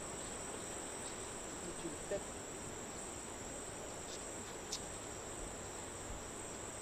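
Steady, high-pitched chorus of insects buzzing without a break, with a couple of faint ticks about four and five seconds in.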